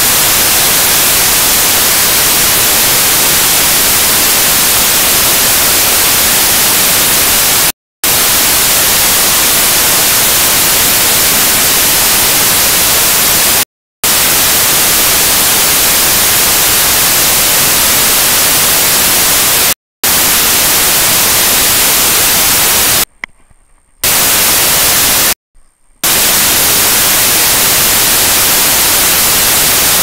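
Loud, steady static hiss from a malfunctioning recording, cutting out abruptly to silence five times, the last two gaps near the end lasting up to about a second.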